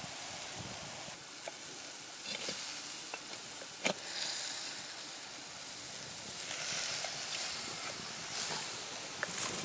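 Castor seed mixture boiling in a pot over a wood fire, sizzling and bubbling with a steady hiss. There is one sharp knock about four seconds in, with a few fainter clicks.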